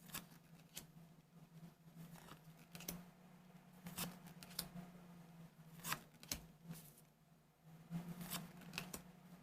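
Faint, scattered clicks and light rustles of trading cards being handled and set down one after another, over a low steady hum.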